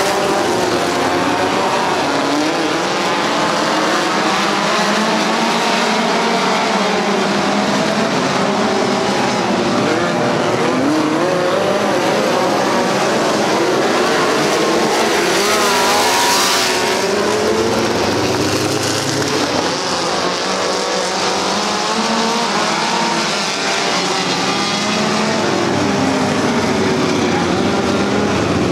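A pack of midget race cars racing on a dirt oval, many engines revving at once, their pitches rising and falling and overlapping as the cars go round.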